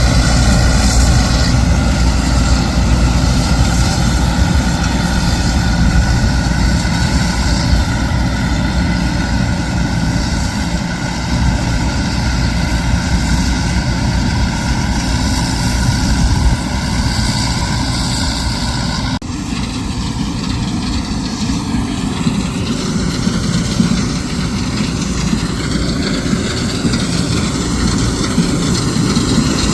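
Heavy diesel farm machinery running steadily under load, a loud continuous drone. Its sound changes abruptly about two-thirds of the way through.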